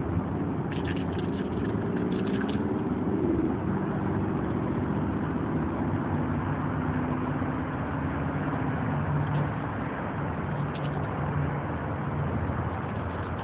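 Steady road traffic: vehicle engines and tyres passing, with one engine note rising and falling in the first few seconds.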